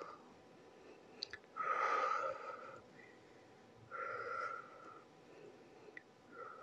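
A woman's breaths out through the mouth, two strong exhalations about two seconds apart, while she holds a Superman back-extension exercise.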